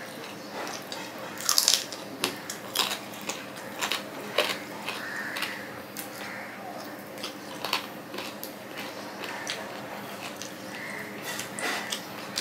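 Close-miked eating by hand: chewing, biting into a curried chicken piece, and wet smacks and squishes of rice and curry kneaded between the fingers. The clicks and smacks come at irregular intervals, the loudest cluster about one and a half seconds in.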